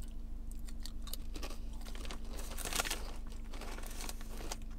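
Crunching and chewing on waffle-cut potato chips: a string of short crisp crunches, with the chip bag crinkling as a hand goes into it.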